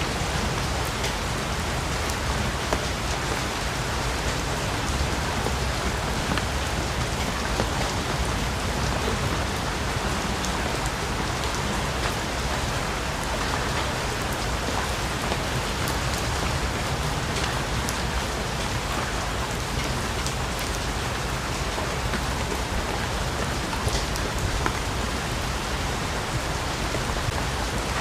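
Steady heavy rain falling on forest foliage, with many individual drops pattering from leaves.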